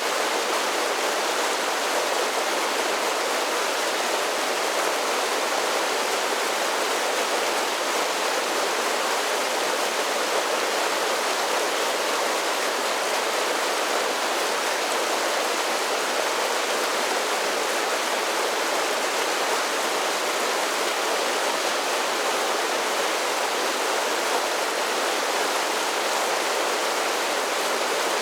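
A series of small creek waterfalls cascading in a steady, unbroken rush of splashing water, bright and hissy with little low rumble.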